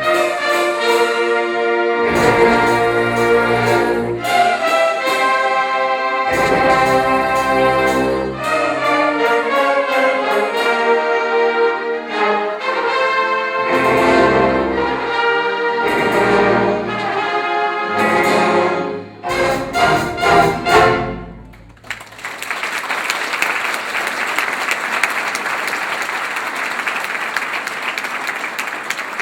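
Orchestral music led by brass, trumpets and trombones, ends on a few short punchy chords about twenty seconds in. Audience applause follows.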